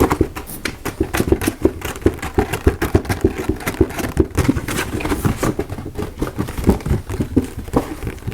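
Fast, rapid tapping on a Coca-Cola box, many sharp taps a second kept up steadily.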